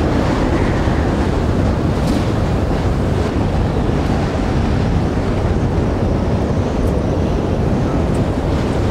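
Strong wind: a steady, loud rushing roar with a deep rumble underneath and no let-up.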